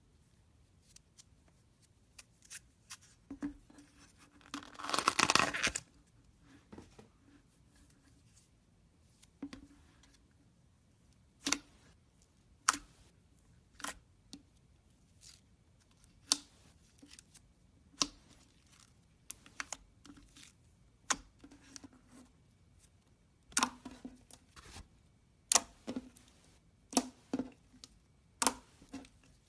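Slime being handled by hand: a series of sharp pops and clicks, one every second or two, sometimes in quick pairs. About five seconds in comes a louder tearing, crinkling stretch lasting over a second.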